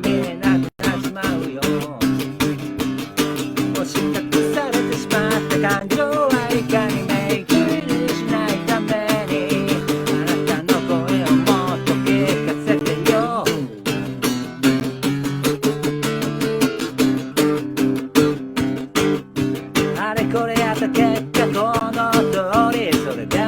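A guitar strummed in steady chords with a voice singing a wavering melody over it, a solo sing-and-play performance.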